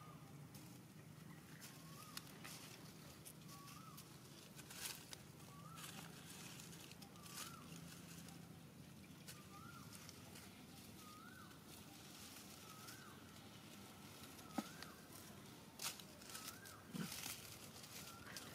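Quiet outdoor scene with a faint, short rising-and-falling call repeated about once a second. Macaques add a few brief rustles and clicks as they move over dry leaf litter.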